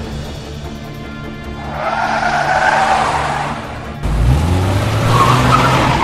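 Car sound effects over background music: tyres skidding on a loose road surface about two seconds in, then from about four seconds a car engine revving up with more skidding as the car speeds away.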